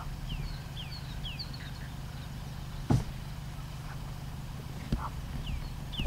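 A vehicle engine idling with a steady low hum, while a bird calls in short falling whistles near the start and again near the end. Two sharp knocks, about three and five seconds in, the first the loudest.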